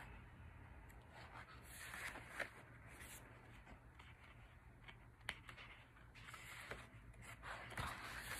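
Pages of a photo book being turned by hand: faint paper swishes and rustles, with two short sharp ticks.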